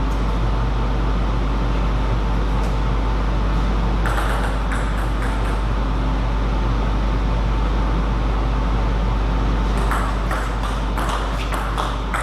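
Table tennis ball clicking off bats and table: a few hits about four seconds in, then a quicker run of hits near the end, over a loud steady low hum.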